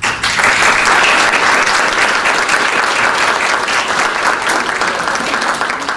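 Audience applauding: dense clapping from many hands that starts at once and slowly eases off toward the end.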